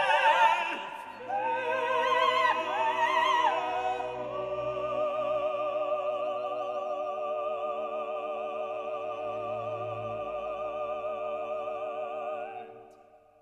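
Background classical music: operatic singing with vibrato over orchestra, settling into a long held chord that stops about a second before the end and fades out.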